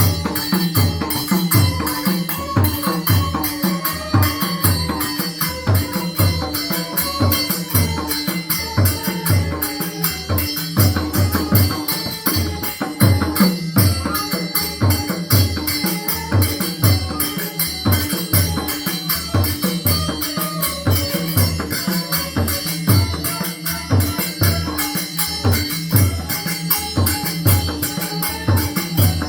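Mridanga drum playing a bansuri tune in a steady rhythm, deep strokes about one and a half to two a second, under a quick high jingling beat and a wavering melody line.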